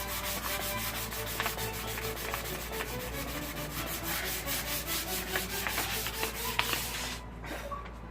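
Hand sanding a painted metal tank with 320-grit sandpaper: quick, even back-and-forth rasping strokes, several a second, easing off near the end.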